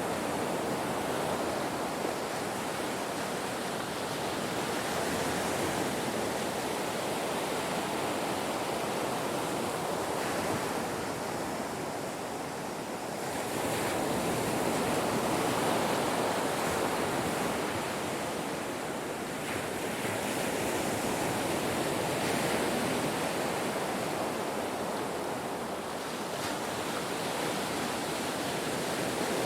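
Ocean surf washing onto a shore: a continuous rush of breaking waves that swells and eases slowly every several seconds.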